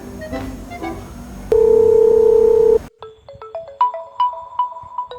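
Background music with a beat, broken about a second and a half in by a loud steady telephone beep lasting over a second. Then the music cuts off and a mobile phone ringtone melody of short repeated notes begins.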